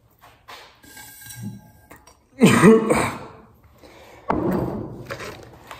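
A man coughing and clearing his throat, in two loud bouts about two seconds apart.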